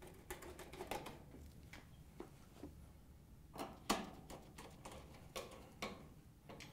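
Faint, scattered metallic clicks and ticks of a 1/4-inch nut driver driving hex-head screws into a washing machine's rear hinge bracket, with two louder clicks a little past halfway.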